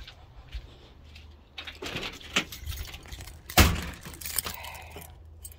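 A bunch of keys jangling and clicking at a door lock as a door is unlocked, with one loud knock about three and a half seconds in.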